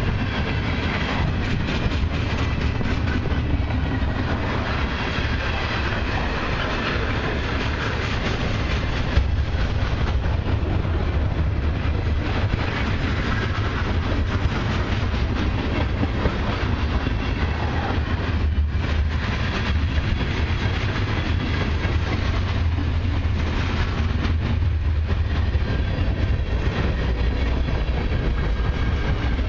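Freight cars of a long mixed train (autoracks, centerbeam flatcars, covered hoppers, tank cars) rolling past: a steady rumble of steel wheels on the rails, with continual clacking over the rail joints.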